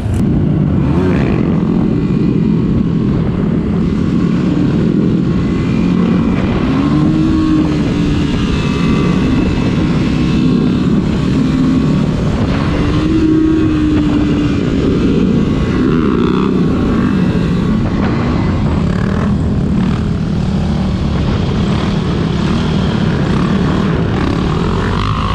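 Supermoto motorcycle engines running on the move over a loud, steady rush. The engine pitch rises and falls a few times as the throttle is worked.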